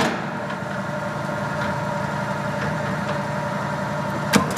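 Clausing variable speed metal lathe running steadily in its low speed range, a constant mechanical hum with a few steady tones. A sharp click comes right at the start and another near the end.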